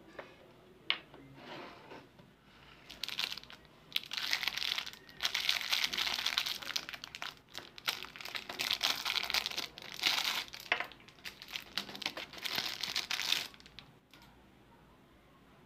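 Clear plastic lollipop wrapper crinkling as it is pulled open and peeled off by hand, in dense bursts for about ten seconds, then dying away near the end.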